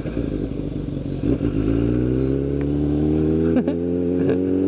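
Sport motorcycle engine running under way, its note rising gently and steadily from about two seconds in as the bike picks up speed.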